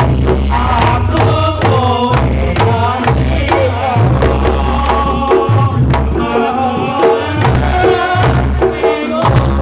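Reog Ponorogo gamelan playing: a busy kendang drum pattern with deep strokes on the large hanging gong, under a wavering melody line.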